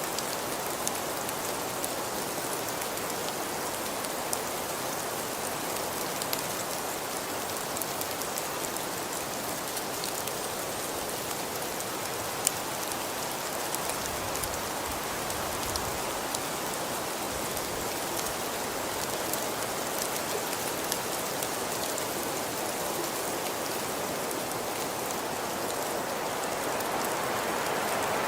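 Steady rain falling, a continuous hiss with many individual drops ticking, one sharper tick about twelve seconds in.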